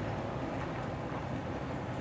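Steady rumble of road traffic: vehicle engines and tyres running along the road.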